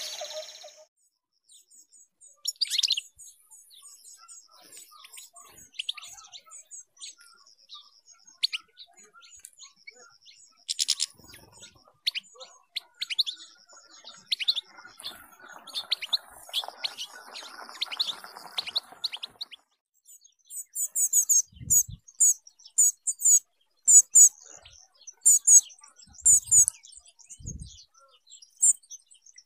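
Caged canaries and other small finches chirping and calling: scattered short chirps, then sharper, louder high calls over the last several seconds, with a few brief low thumps among them.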